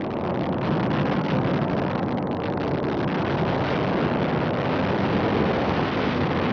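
Antares rocket's first stage, its two AJ26 kerosene–liquid-oxygen engines, rumbling steadily during ascent and growing slightly louder.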